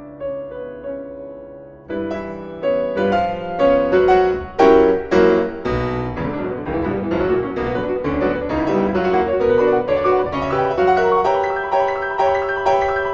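Piano music: a quiet opening phrase, then from about two seconds in a louder, busier run of struck notes.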